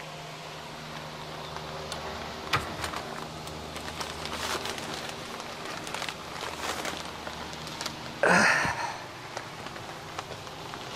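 Greenhouse ventilation fans running with a steady hum, under scattered light clicks and rustling. A brief loud rushing noise comes about eight seconds in.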